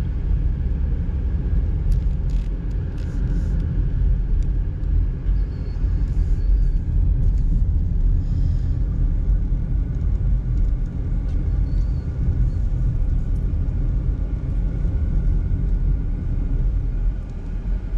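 Steady low rumble of a car driving at low speed, engine and tyre noise heard from inside the cabin.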